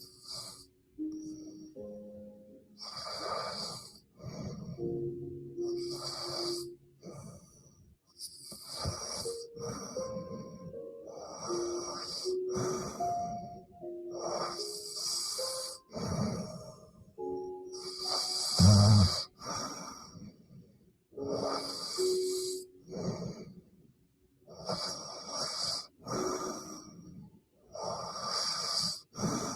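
A woman snoring in her sleep, breath after breath every second or two, with one louder, deeper snort about two-thirds of the way through. Soft background music with held notes plays underneath.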